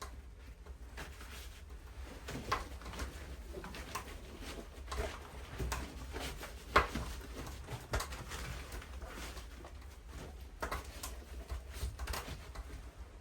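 Irregular light knocks and clicks, with one sharper click about seven seconds in, over a steady low rumble.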